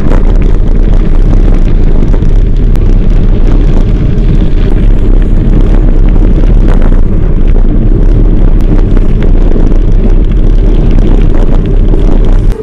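Loud, steady wind buffeting on the microphone of a handlebar-mounted camera on a moving mountain bike, mixed with rumble from the tyres and bike on a gravel track.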